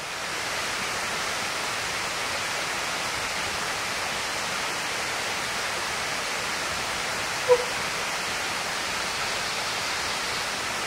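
Steady rushing of running water at an even level. About seven and a half seconds in there is one short squeak.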